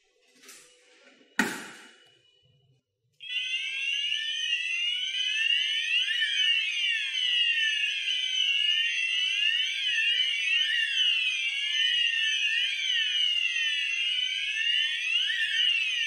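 A single sharp click, then about three seconds in the fire alarm sounders of an addressable fire alarm system go off together: several electronic sounders wailing in overlapping, rapidly sweeping high tones, signalling a fire alarm set off on test.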